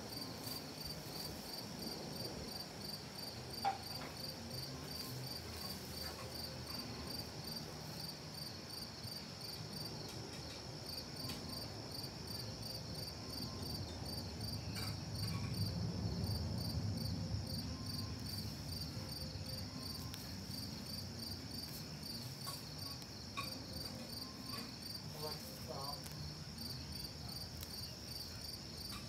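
Steady high insect chorus, pulsing regularly a few times a second. A low rumble swells in the middle, and there is a single sharp click a few seconds in.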